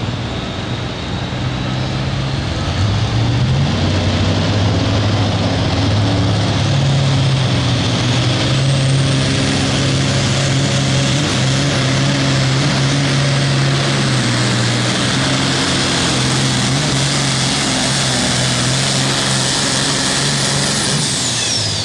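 Turbocharged diesel engine of a John Deere 5020 Pro Farm pulling tractor under full load during a pull. About two to three seconds in it revs up, then runs at a steady high pitch with a turbo whistle that slowly climbs. Near the end the whistle falls away sharply.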